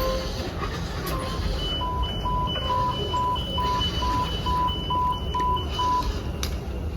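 Metro train door-closing warning: a rapid run of short electronic beeps, alternating between a high and a low tone at about two to three beeps a second, starting about two seconds in and lasting about four seconds, over a steady low rumble.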